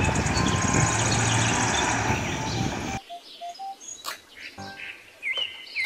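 Heavy eight-wheel diesel dump truck running, with birds chirping, cutting off abruptly about three seconds in. Then quieter clicks and clatter of plastic toy vehicles being handled in a basket, with a few short faint tones.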